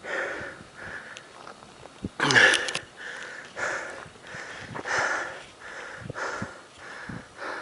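A hiker breathing hard and fast close to the microphone, with rapid in-and-out breaths a little under a second apart and one louder, voiced sighing breath about two seconds in. He is out of breath after the long climb to the summit.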